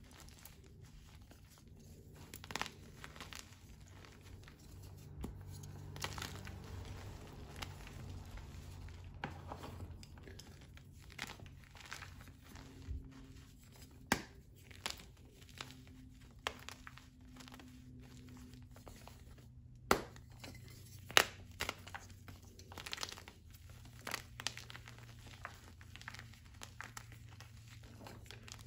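Hands crushing and crumbling blocks of magnesium carbonate gym chalk and reformed chalk in a bowl of loose powder. A soft, continuous crumbling and crunching runs throughout, broken by sharp snaps as pieces break. The two loudest snaps come a little past two-thirds of the way through.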